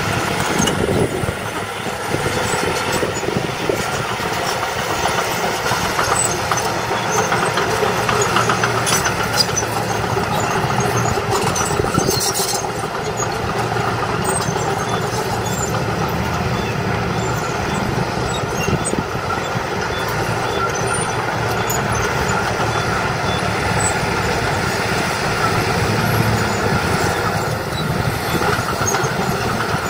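Diesel engine of a small Komatsu crawler dozer running steadily as it works its blade among stone fill, mixed with the diesel engine of a loaded dump truck.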